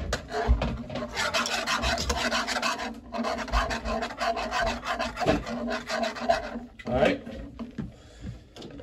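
Wire whisk beating hot eggnog custard in a metal saucepan, its wires scraping against the sides and bottom of the pan in rapid strokes. The whisking eases off and grows quieter near the end.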